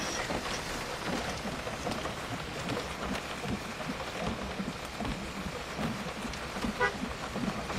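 Rain pelting a car's windshield and roof, heard from inside the vehicle as a steady patter of drops. A short tone sounds near the end.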